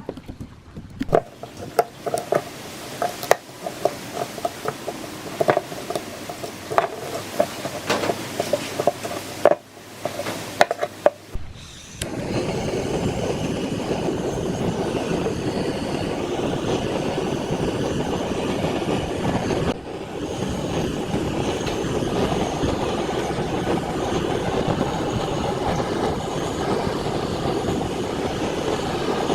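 Irregular taps and clinks of tools working on metal fan parts, some ringing briefly. About twelve seconds in, a steady machine noise starts and runs on.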